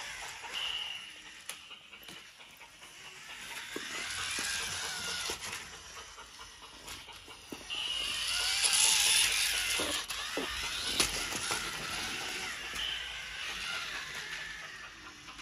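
Little Tikes Tumble Train's battery-powered motor whirring as the toy engine climbs and loops around its plastic track, its wheels clicking and rattling on the track pieces. It grows loudest about eight seconds in, as the train comes close, with sharp clicks around ten and eleven seconds.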